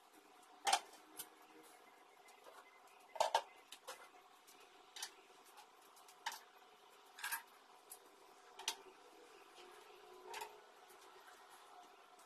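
Scattered light knocks and clinks of household ornaments and small objects being picked up and set down during dusting and tidying, loudest near the start and about three seconds in, over a faint steady hum.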